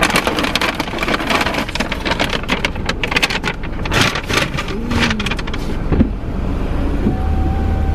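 A takeout bag rustling and crinkling as it is handled and set down inside a car, in a dense run of quick crackles that thins out after about four seconds. A faint steady tone comes in near the end.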